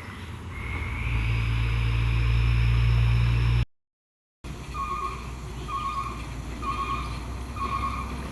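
Heavy coal truck's diesel engine labouring uphill, growing louder with a rising whine, then cutting off abruptly. After a short gap a quieter truck engine runs with an even beep repeated about once a second.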